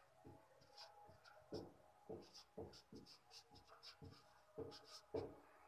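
Marker pen writing on a whiteboard: a string of faint, short, irregular stroke sounds as letters are written out.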